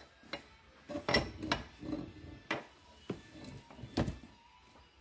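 Cast-iron and steel parts of a Ford 8N tractor's hydraulic lift cover knocking and clinking against each other as they are handled and fitted together by hand. The knocks are irregular, about half a dozen, with the loudest about four seconds in.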